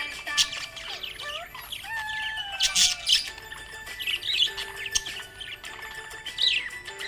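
Budgerigar chirping and warbling: a busy run of quick chirps and sliding whistles, the chatter of a happy budgie.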